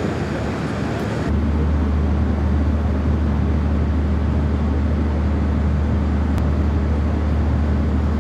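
Steady low mechanical hum with a constant hiss, setting in abruptly about a second in after a noisier mix of background sound.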